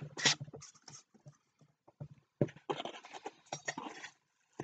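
Packaging being handled as an item is worked out of its box: short, scattered rustles and knocks.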